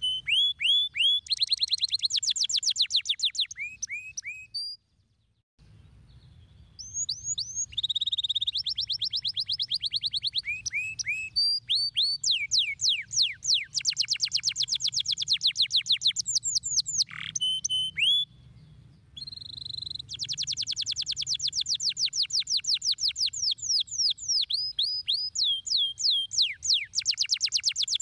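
Domestic canary singing in fast trills of repeated high, downward-sweeping notes, switching to a new trill every second or two, with two short breaks.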